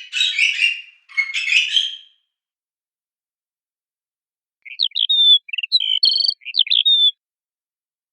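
Songbird song: a burst of scratchy chattering phrases, a pause of about two and a half seconds, then a quick phrase of clear, varied whistled notes.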